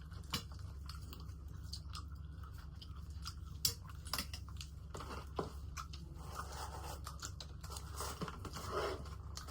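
Close-miked chewing and crunching of crispy fried food, with scattered sharp crunches, the loudest a little past three and a half seconds in, over a steady low hum.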